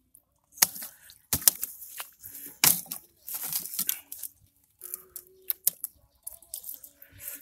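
Handling noise from a PVC pipe being turned and moved in the hand close to the microphone: irregular rustling and scraping with sharp clicks.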